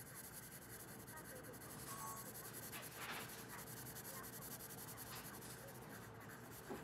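Coloured pencil shading on paper: a faint, steady scratching.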